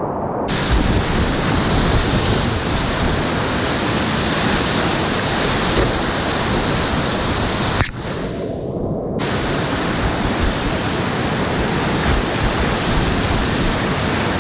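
Whitewater rapids rushing loudly around a kayak, heard from a camera on the boat, with wind buffeting the microphone. About eight seconds in the sound breaks sharply and goes muffled for about a second, then the full rush returns.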